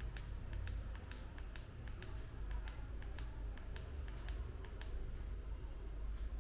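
A rapid, irregular series of sharp light clicks, about four a second, over a steady low hum; the clicks stop shortly before the end.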